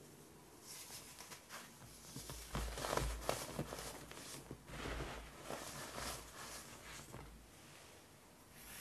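Compressed baking soda being crushed in the hands: a dense crunching crackle, with a soft hiss as the powder streams out between the fingers. It is loudest about three seconds in and fades near the end.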